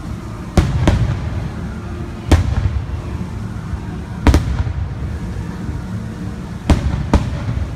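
Aerial fireworks shells bursting: about six sharp bangs, some in quick pairs, over a steady low rumble.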